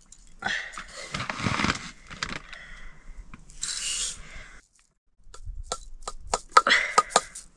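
Dry rice grains poured from a metal cup into an aluminium pressure-cooker pot, a grainy hissing rattle in two pours, followed near the end by a quick run of sharp clicks and knocks.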